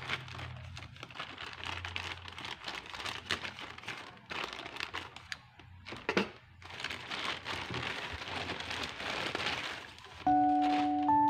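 Plastic courier mailer bag crinkling and rustling as it is cut open with scissors and handled, with irregular sharp snips and crackles. Background music comes in near the end.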